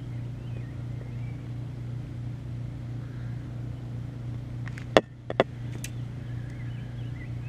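Steady low mechanical hum, like an engine or motor running, with two sharp clicks a little after halfway through.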